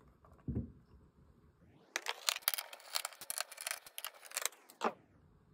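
Hands handling the car phone transceiver's plastic case: a soft knock, then a dense run of small clicks and rattles in the middle, and another knock near the end.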